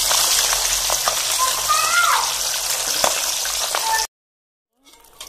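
Catfish pieces deep-frying in hot oil in a wok: a steady, loud sizzling. The fish are fried until browned and fairly dry. The sound cuts off abruptly about four seconds in.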